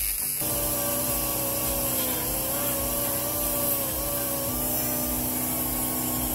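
Handheld die grinder with a burr grinding into an aluminium two-stroke crankcase. It gives a steady whine that wavers slightly in pitch as the burr bears on the metal, starting about half a second in.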